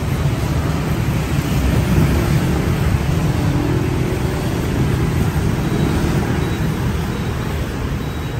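Steady low rumble of road traffic, with no distinct single event.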